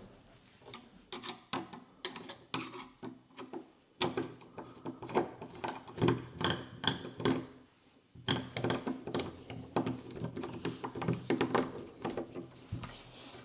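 Irregular metal clicks, taps and rattles of door knob hardware being handled and fitted into a door.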